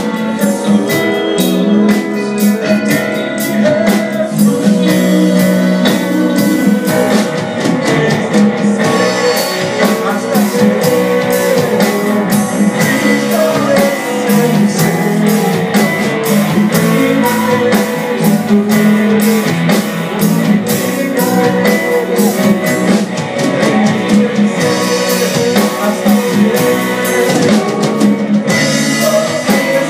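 A live church band playing a song with a singer: drums and guitar with keyboard, and sung vocals.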